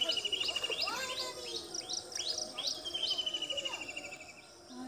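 Birds calling: a run of short notes that each slide down in pitch, about two a second, over a long, fast trilling call that breaks off about a second in and starts again.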